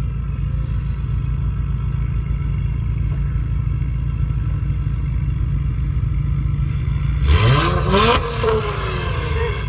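Turbocharged car engine with an aftermarket downpipe and the stock muffler, idling steadily. About seven seconds in it is revved sharply once and drops back, and a second rev starts right at the end.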